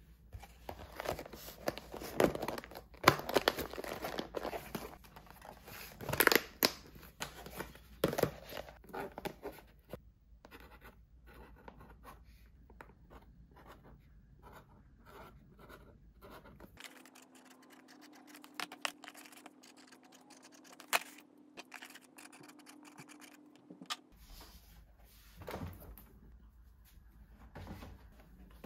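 Clear plastic lids pressed and snapped onto plastic meal-prep containers, with sharp clicks and crinkling, loudest in the first ten seconds. Then quieter scratching and tearing: tape torn off a roll and a marker writing labels on it. A steady low hum joins for several seconds in the latter half.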